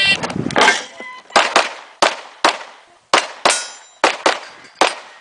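A fast string of about ten gunshots, unevenly spaced, with steel targets ringing as they are hit.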